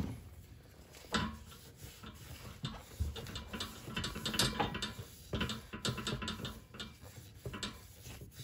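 Shop towel rubbing and wiping inside the cast-aluminium crankcase's crankshaft bearing bore, cleaning it with brake cleaner after the old bearing sleeve was pressed out: soft, irregular rustling and scraping with occasional light knocks.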